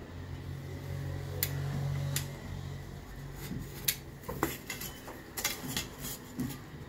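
Utility knife drawn through aluminium-faced asphalt sound-deadening mat along a metal ruler, a low steady scrape for the first two seconds or so. Then several sharp metallic clicks and clatters as the aluminium ruler is lifted and set down on the mat.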